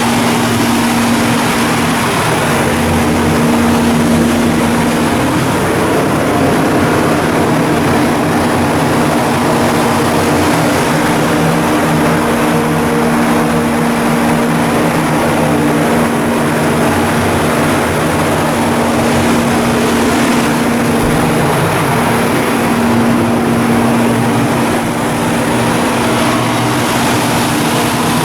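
A large engine running steadily: a continuous loud drone with a held low hum that does not change.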